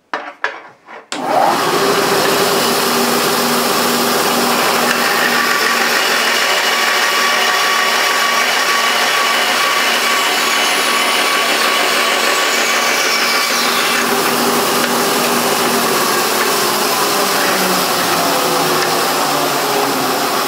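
Vertical bandsaw starting about a second in and then running steadily, its blade cutting through a metal block to split the drilled round-ball mold into two halves. A few handling knocks come just before the saw starts.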